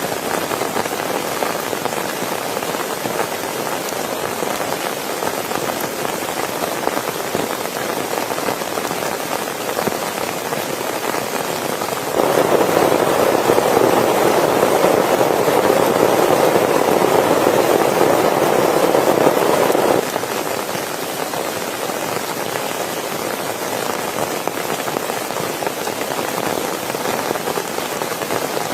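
Steady rain falling. From about twelve seconds in to about twenty it is louder and fuller, starting and stopping abruptly.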